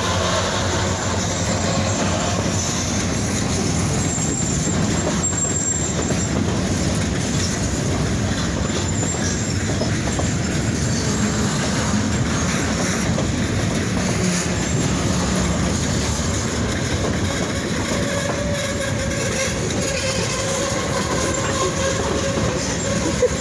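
Freight train passing at close range: a steady loud rumble and clatter of steel wheels on the rail, with brief high wheel squeals.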